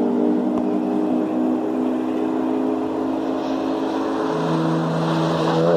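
Car engines running at speed on a racing circuit, several engine notes overlapping, among them a silver BMW E46 M3 coupe coming through a corner. A new lower note comes in about four seconds in, and near the end the pitch climbs as a car accelerates.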